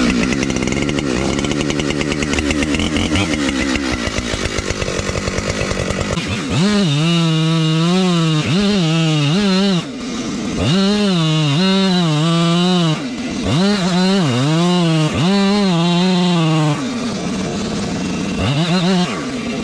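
Husqvarna 592XP two-stroke chainsaw running hard while cutting the face notch in a large oak trunk. After about six seconds the engine note rises and sags over and over as the chain loads in the cut, with the throttle eased off briefly a couple of times.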